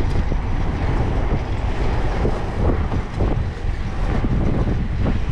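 Wind buffeting the microphone on a moving fixed-gear bicycle, a steady low rumble, with the noise of street traffic underneath.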